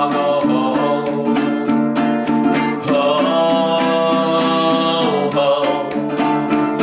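Acoustic guitar strummed in a steady rhythm, with a singing voice that holds one long note for about two seconds midway.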